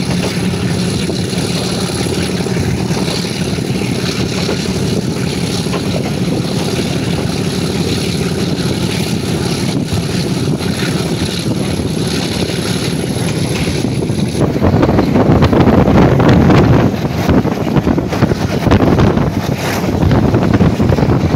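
Diesel locomotive of the HBU-20 class under power in a high throttle notch, a steady engine drone as the train gathers speed. About fourteen seconds in, louder wind rushing over the microphone and train rumble take over.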